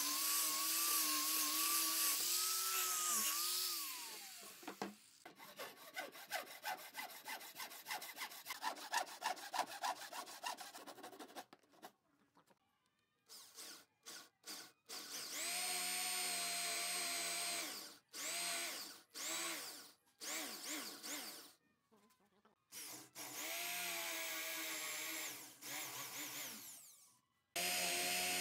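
An angle grinder with a sanding pad runs against the wood and is switched off, its whine falling away about four seconds in, followed by quick, regular rasping strokes. From about thirteen seconds in, an electric drill bores into a block of laminated wood in a series of bursts, starting and stopping, some a few seconds long.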